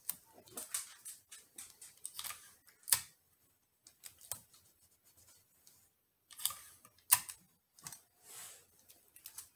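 Hands handling cotton fabric and small strips of clear tape over a plastic embroidery hoop: scattered soft clicks and short scratchy rustles, with two sharper taps about three and seven seconds in.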